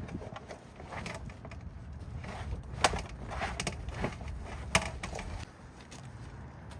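Towel rubbing over a rubber car floor mat: soft, irregular scuffing with a few sharp clicks, the two clearest about three and nearly five seconds in.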